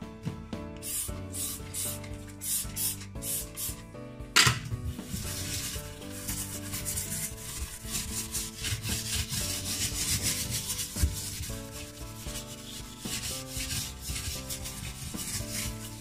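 A scouring pad scrubbing over a wet, foamy ceramic glass hob: short separate strokes at first, then continuous rubbing from about four seconds in.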